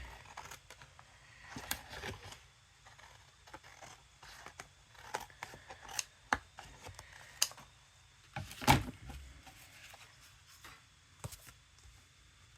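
Cardstock and a metal cutting die being handled: scattered light clicks, taps and paper rustles, with one louder knock a little before nine seconds in.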